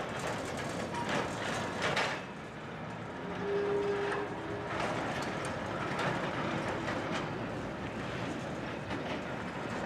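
Vintage tram running on street rails, a steady rumble with its wheels knocking over rail joints several times. A brief steady tone sounds about three and a half seconds in.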